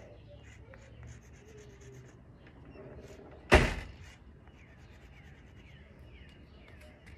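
A door slams shut once, a single loud bang about three and a half seconds in that dies away within half a second.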